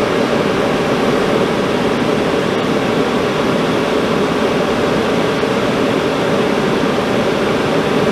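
Dometic RV furnace running on a test fire, its blower giving a steady, even whoosh, with the newly replaced sail switch letting it run.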